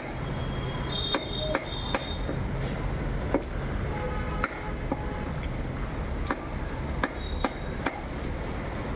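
A long heavy knife chopping through pieces of Atlantic tripletail and striking a wooden chopping block: sharp knocks at an uneven pace, about nine in all, over a steady low background rumble.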